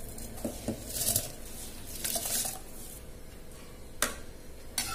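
Soaked rice tipped from a steel bowl into boiling water in an aluminium pressure cooker, with two spells of splashing hiss, then a ladle stirring it and knocking twice against the pot near the end.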